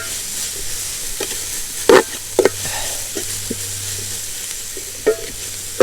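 Sliced onions with coconut and green chillies sizzling steadily as they sauté in hot coconut oil in a pan, with a few sharp knocks of the spoon against the pan as they are stirred, the loudest about two seconds in.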